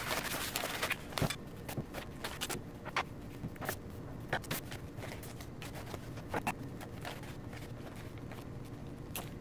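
Brown kraft paper crinkling and rustling as a package is folded and wrapped, then scattered light taps and handling noises on a wooden table as twine is tied around it.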